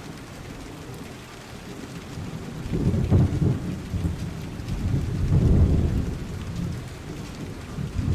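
Steady rain, with thunder rumbling low twice, about three and five and a half seconds in.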